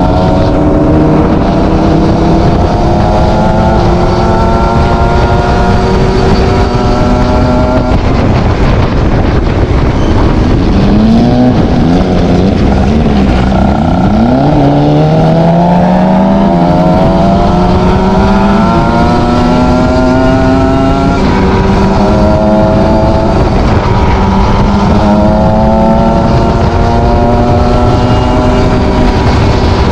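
ZX 300 R motorcycle exhaust, running loud at a steady pitch, then rising and falling quickly several times in the middle before climbing in one long rise and settling again.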